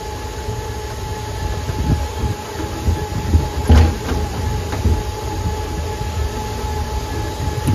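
Boardwalk tram car rolling along: a steady low rumble with irregular knocks and bumps and a steady whine, with one louder knock a little past halfway.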